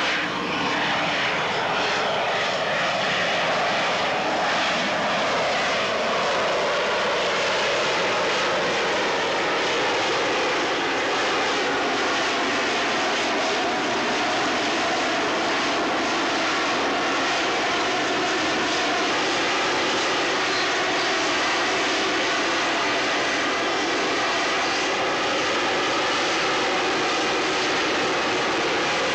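Harrier jump jet's Pegasus vectored-thrust turbofan running steadily at high power as the jet hovers and moves slowly: a continuous jet rush with a whine, its tones sliding downward over the first few seconds and then holding steady.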